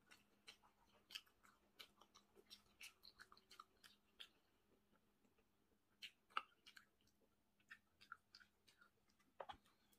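Faint, close-miked chewing: soft wet mouth clicks and smacks coming irregularly, with a sharper click about six seconds in and another near the end.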